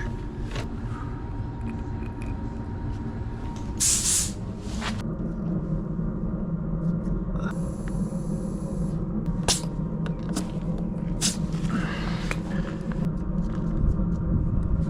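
Truck engine idling steadily, with a short hiss about four seconds in and a few sharp clicks in the second half.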